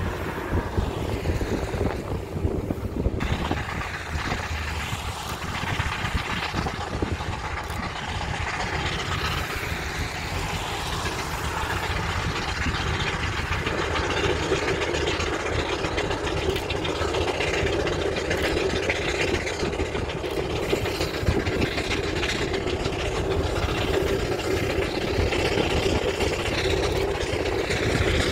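Steam road engine running on the road, a steady mechanical rumble that grows a little fuller about halfway through.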